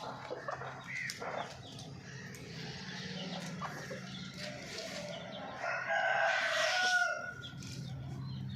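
Chickens clucking, with a rooster crowing once about six seconds in: one long call of about a second and a half, the loudest sound here.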